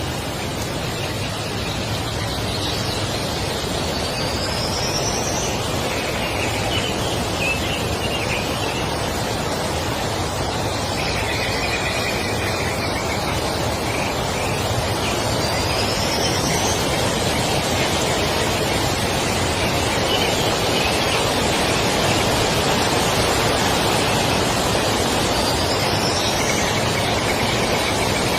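A steady rushing noise, growing slowly louder, with a few short high chirps from small birds scattered through it.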